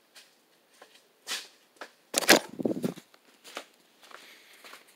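Scattered clicks and knocks of handling and work, with one loud knock about two seconds in, then faint footsteps on gravel near the end.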